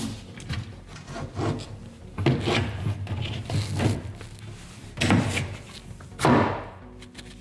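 Kitchen cabinet plinth board being refitted: the board rubs and knocks against the floor and cabinet, a string of small knocks and scrapes with two louder knocks near the end.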